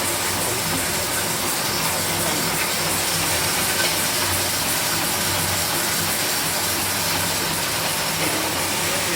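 Industrial plastic-granule mixer machine running steadily: a low motor hum under a constant rushing hiss.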